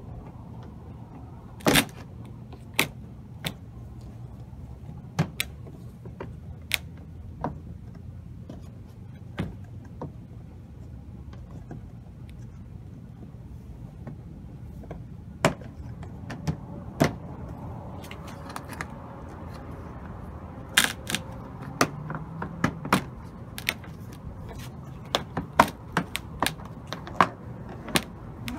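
Sharp plastic clicks, taps and knocks from a 2011 Toyota Corolla front bumper cover as its grilles and trim pieces are handled and fitted in from behind, scattered at first and coming thicker in the last third, over a faint steady low hum.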